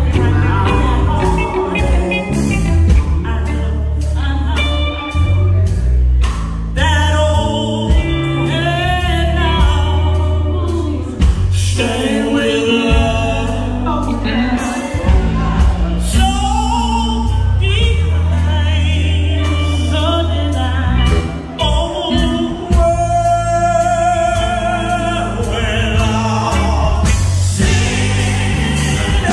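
Live gospel music: a female vocal group singing into microphones over an amplified band of electric guitar, bass guitar and keyboard, loud and continuous.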